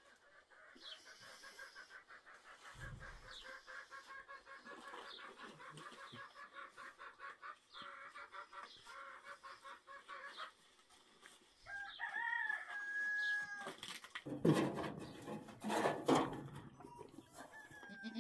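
Domestic chickens clucking in a long, fast run of calls, then a rooster crowing about twelve seconds in. Two loud, rough bursts of noise follow a couple of seconds later.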